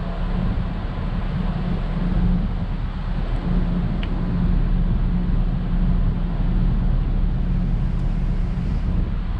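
Steady low drone of the Sakurajima car ferry's engines, heard from the open deck while the ship is under way, with a constant hum and a wash of wind on the microphone.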